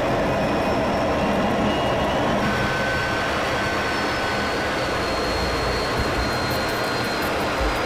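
Steady in-flight noise inside a fighter jet's cockpit: rushing air and jet engine hum, with a few faint, thin, steady whining tones over it.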